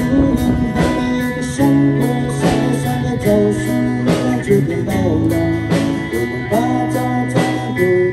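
A live band playing: acoustic guitars with a singer and a steady beat.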